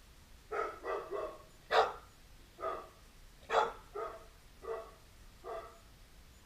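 Border collie barking: about nine short barks in an uneven run, the loudest two near the second and fourth seconds.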